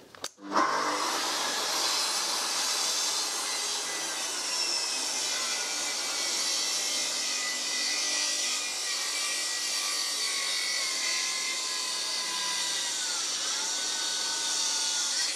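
Festool plunge saw cutting a shallow-angle bevel (a Swiss edge) along a wooden workpiece in a single pass, running steadily. The motor labours under the one-pass cut: its pitch sags about ten to thirteen seconds in, dips, then picks up again near the end.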